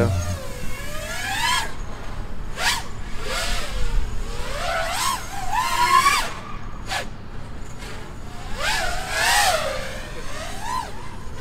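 5-inch FPV quadcopter with T-Motor 2207.5 brushless motors and Gemfan tri-blade props, its whine swooping up and down in pitch as the throttle changes in flight. The pitch climbs about a second in, rises again around five to six seconds in and swoops back down late on.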